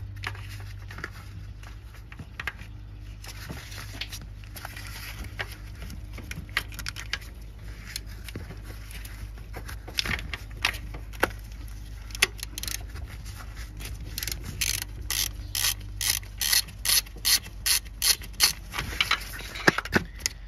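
Hand ratchet clicking as it loosens the alternator's 15 mm mounting nut. Scattered clicks at first, then quick, regular ratcheting strokes about twice a second over the last several seconds.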